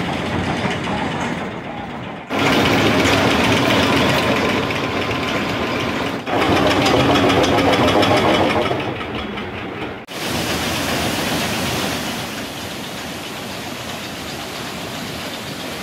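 Lift chain of a Hopkins shoot-the-chute ride running, a steady mechanical clatter with a hum as it hauls a boat up the lift hill, mixed with park crowd voices. The sound changes abruptly a few times, and the second half is a quieter, even noise.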